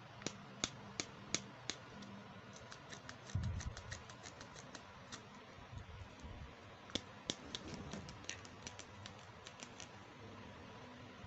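Small hard plastic toy pieces from a toy makeup set clicking and tapping as they are handled. A few separate clicks come first, then quicker runs of light clicks, with one dull bump about three and a half seconds in.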